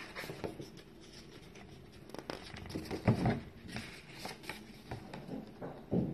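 Pages of a paperback picture book rustling and flapping as they are turned, in scattered short rustles, with a couple of louder soft bumps about three seconds in and near the end.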